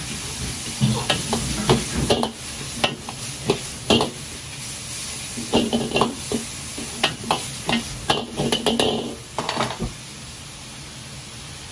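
Metal ladle scraping and clanking against a wok as food is stir-fried over a high gas flame, over a steady sizzle. The irregular ladle strokes stop about ten seconds in, leaving only the steady hiss.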